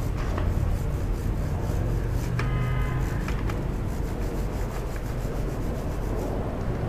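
Bristle brush scrubbing a motorcycle drive chain, a rasping rub in repeated strokes over a low steady rumble. A brief high tone sounds for about a second, a little after two seconds in.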